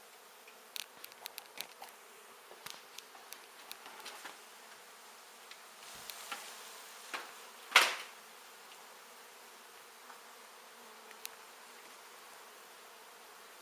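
Honey bees from a large exposed colony buzzing steadily, with scattered light clicks over the first few seconds and one brief, louder crackling scrape about eight seconds in.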